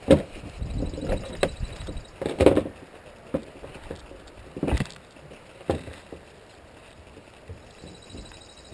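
Irregular knocks and thumps, several in a few seconds, the loudest near the start and about two and a half seconds in, with softer ones after.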